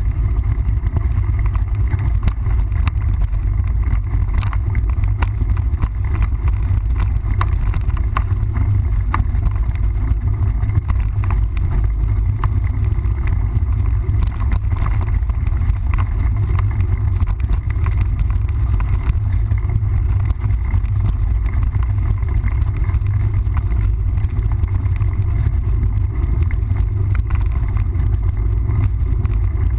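Wind buffeting the microphone of a camera riding along on a mountain bike, a heavy steady rumble, with many scattered rattles and knocks from the bike on a rough trail.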